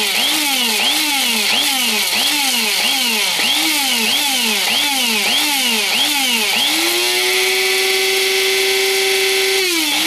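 Electric blade spice grinder pulsed about twice a second, its motor speeding up and dropping back with each press, then held on at a steady speed for about three seconds and released near the end. It is chopping dried chili peppers into powder.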